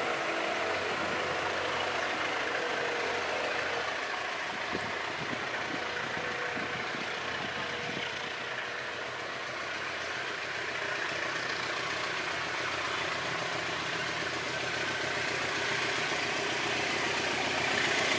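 Diesel-electric locomotive approaching with its engine running steadily, growing louder toward the end as it comes nearer.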